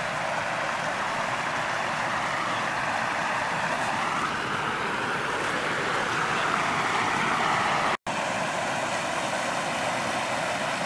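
Creek water rushing steadily over a low bedrock ledge in a small cascade. The sound drops out for an instant about eight seconds in.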